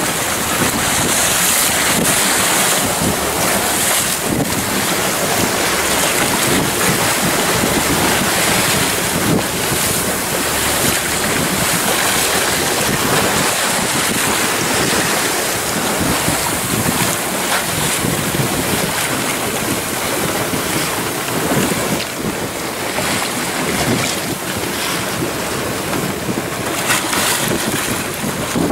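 Wind rushing over the microphone and water rushing past the hull of a boat under way at speed: a steady, loud rush with no breaks.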